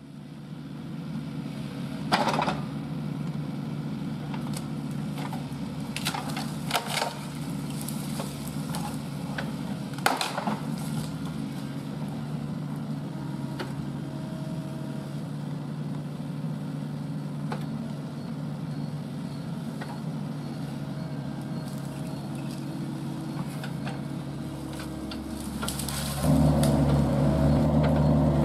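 Kubota mini excavator's diesel engine running steadily under load while its hydraulic tree shear cuts branches, giving several sharp cracks and snaps of breaking wood. The engine gets louder about 26 seconds in.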